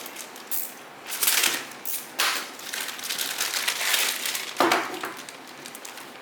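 Plastic packaging crinkling and rustling in several short irregular bursts as a power adapter is unwrapped by hand.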